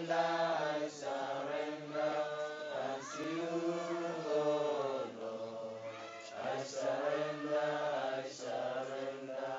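Unaccompanied voices singing a slow worship chant, with long held notes and short breaks between phrases.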